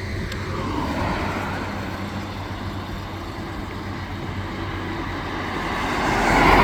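Road traffic: a motor vehicle approaches and passes close by, its sound swelling to a peak near the end and then fading, over a steady low hum.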